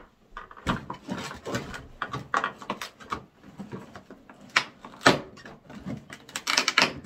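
Clear plastic blister tray crinkling and clacking as it is handled and pried apart, with a run of irregular sharp crackles and knocks, the loudest about five seconds in.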